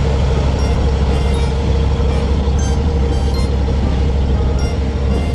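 Fishing boat's engine running steadily under way, a loud low drone with a steady hum.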